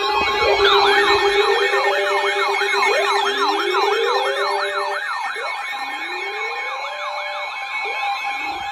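Several electronic sirens sounding together: a fast yelp sweeping up and down about three times a second over a slower wail that rises every couple of seconds, with a steady tone underneath, easing gradually quieter.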